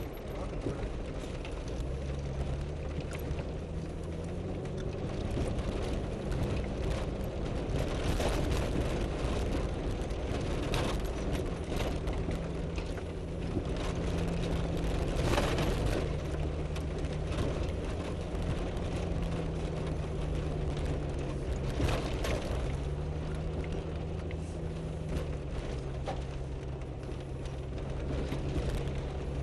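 Off-road vehicle's engine running at low speed, its pitch slowly rising and falling, with knocks and rattles from the body and suspension as it crawls over a rocky dirt trail; the loudest knock comes about halfway through.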